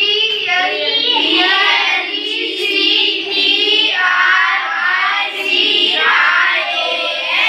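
A class of children chanting a word's spelling aloud in unison, letter by letter, in a sing-song chorus.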